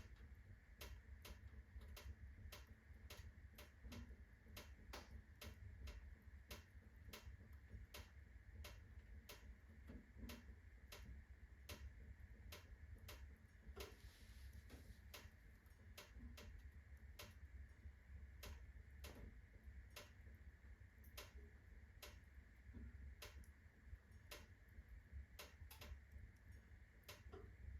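Birch logs burning in a fireplace at full blaze, with a low steady rumble and faint, evenly spaced ticks about twice a second.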